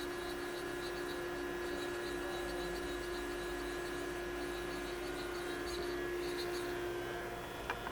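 Grinding machine running with a steady electrical hum and a faint high whine that comes and goes as its Z axis is jogged in and out with the hand wheel. A couple of light clicks near the end.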